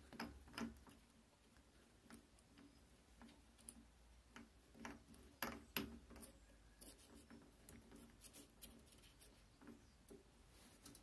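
Faint, irregular light clicks and ticks as a drill bit is seated and a pillar drill's chuck is tightened by hand.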